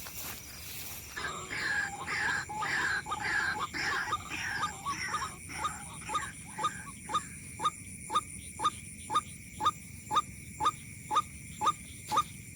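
White-breasted waterhen (ruak-ruak) calling. About a second in, a run of wavering, rising notes starts, then settles into a steady series of short calls about two a second.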